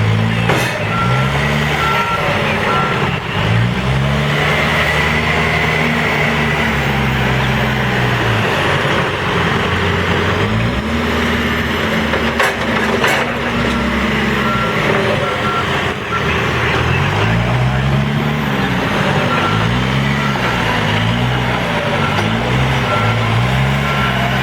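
Case 590 Super N backhoe's diesel engine revving up and falling back again and again as it works, the swings coming quicker, about once a second, near the end. A reversing alarm beeps in short runs, and a few sharp knocks stand out.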